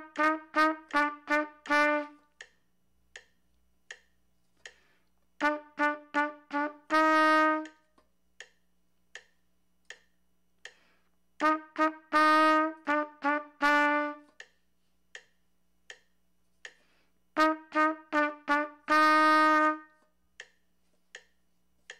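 Trumpet playing four short phrases of tongued notes on two neighbouring pitches, do and ti in F, each phrase ending on a longer held note, with gaps of a few seconds between them. Faint, evenly spaced ticks run through the gaps.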